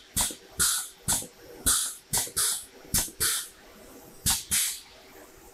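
The pneumatic drawbar activator cylinder on a Park Industries CNC stone router's spindle is cycled repeatedly with the manual tool release button. Air vents in short, sharp hisses, each opening with a click, about a dozen in four and a half seconds, then the cycling stops.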